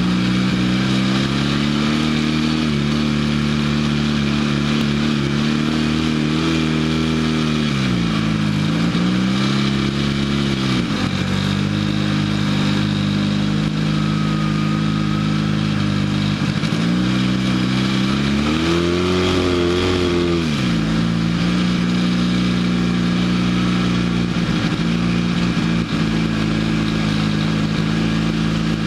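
Off-road vehicle's engine running while driving over sand, mostly at a steady speed. The revs dip and pick up again about eight seconds in, then rise and fall back near twenty seconds.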